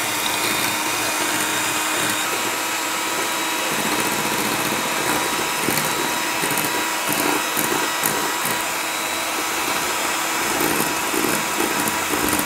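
Electric hand mixer running at a steady whir, its twin wire beaters whipping eggs and sugar in a glass bowl.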